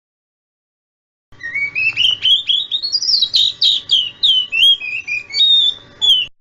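Oriental magpie-robin song used as a lure recording to prompt young magpie-robins to sing. About a second in, a quick run of clear whistled notes starts, climbs in pitch and then steps back down, ending on a held whistle.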